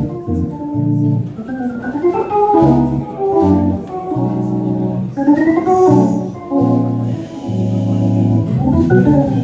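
Hammond B3 organ playing jazz: held, sustained chords that change every half second to a second over low bass notes.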